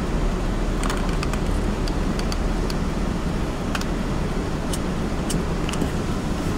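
Steady low rumble of a car's road and engine noise heard inside the cabin, with a few faint, scattered light clicks.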